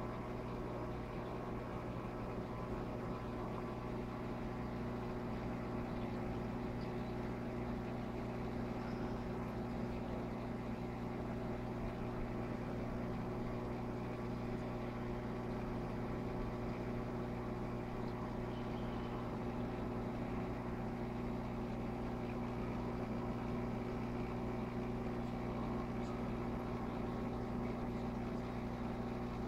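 Steady electric hum of a Red Sea Max 250 reef aquarium's running equipment, its pumps and fans, holding several constant tones over a soft rushing noise.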